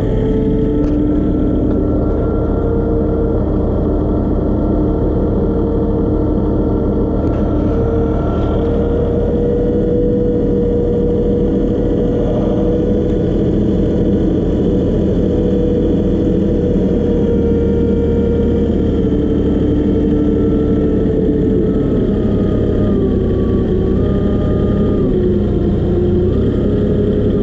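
Engine of a four-wheel-drive truck-mounted forklift running steadily as it drives over dirt carrying a load of building panels, its pitch shifting up and down with the throttle.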